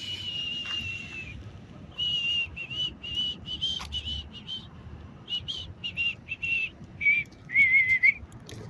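High, clear whistled notes: one long, slightly falling note, then a run of shorter notes at about the same pitch, dropping lower near the end into a quick warbling trill.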